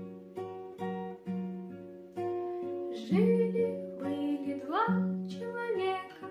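Acoustic guitar picking out single notes, a few a second; about halfway through a voice comes in singing over it.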